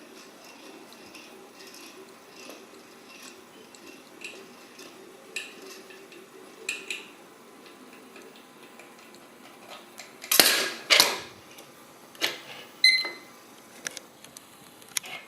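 A fallen toy gyroscope's metal frame clattering and knocking as it is handled. The two loudest clatters come about ten and eleven seconds in, and a later knock gives a brief metallic ring. A faint hum fades away in the first few seconds.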